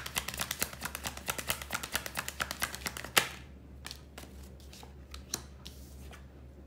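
Tarot cards being shuffled by hand: a fast run of crisp card flicks, about ten a second, ending in one sharp snap about three seconds in, then a few scattered taps of cards.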